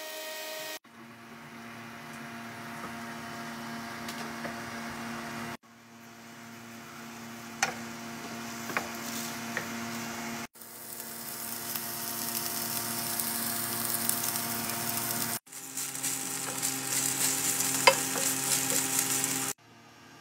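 Shrimp, onion, pepper and grated carrot sizzling in a frying pan while being stirred with a wooden spatula, with a few sharp clicks from the spatula against the pan. The sizzle breaks off and restarts several times at cuts, growing louder within each stretch, over a steady low hum.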